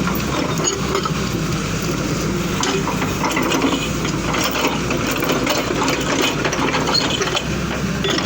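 Excavator at work: its engine running steadily under a continuous, irregular clatter and clanking.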